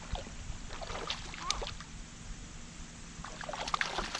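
A hooked trout thrashing and splashing at the water's surface as it is reeled in to the bank. There are splashes about a second in and a longer, louder spell of splashing near the end, over a low wind rumble on the microphone.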